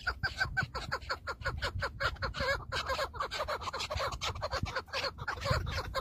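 Chukar partridges calling in a fast, unbroken run of short chuck notes, about six a second, over a low rumble.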